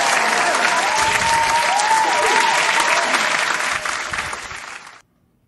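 Crowd applause, added as a sound effect, fading out about four seconds in and cutting off suddenly to silence.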